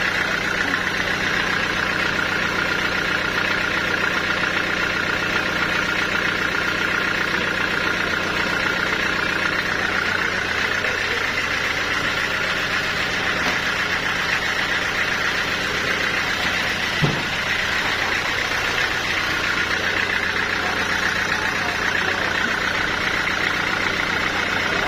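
Sawmill saw machinery running steadily: a constant mechanical drone with a low hum and a hissing band higher up. There is one short knock about seventeen seconds in.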